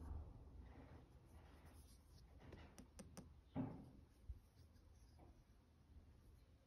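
Near silence with faint handling sounds: soft rubs and a few small, sharp clicks around the middle as a wristwatch on its cushion is turned in the hands.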